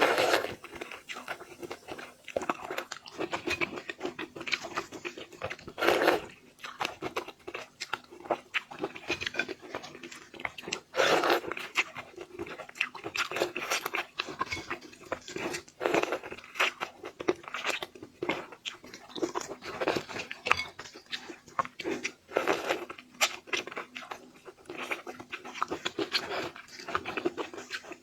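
A person biting and chewing raw sweet shrimp close to the microphone, with irregular crunching throughout and louder bites about every five seconds.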